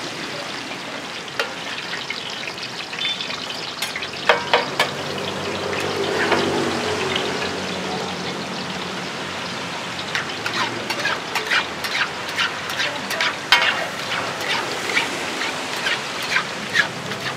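Martabak frying in shallow oil on a wide flat iron pan: a steady sizzle broken by sharp crackles and clicks, which come thick and fast in the second half.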